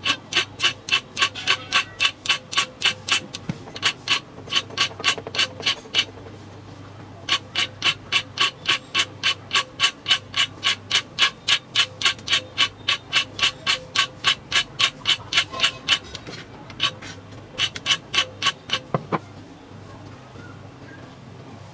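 Hand filing on a small iron knife blade: quick, regular back-and-forth file strokes, about three a second, in three runs with short pauses, stopping near the end.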